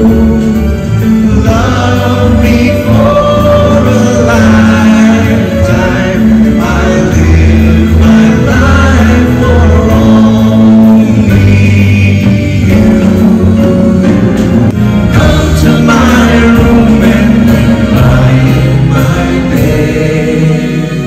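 Male vocalist singing a song into a microphone with a live band backing him, loud and steady.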